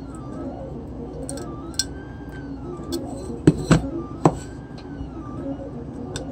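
Hard plastic clicks and knocks as 3D-printed air scoops are handled and pressed against an e-bike hub motor's side cover, with three sharp clicks about halfway through and a few lighter ticks around them.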